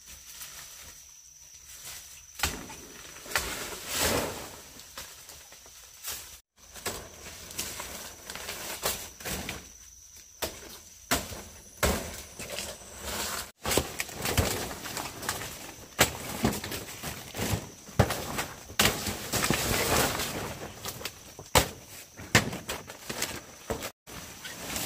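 Irregular knocks, snaps and rustling from hands-on work outdoors, over a steady high insect trill.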